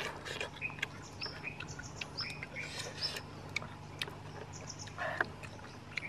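Small birds chirping in many short, high calls and quick trills over a steady low hum, with a brief louder noise about five seconds in.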